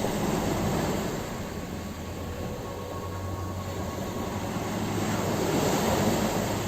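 Ocean surf breaking and washing onto a shore: a steady rush of water that swells into a louder surge about five to six seconds in.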